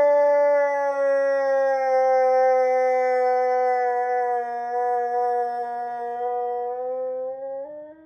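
A husky howling one long, drawn-out note that sags slightly in pitch, then lifts and breaks off near the end.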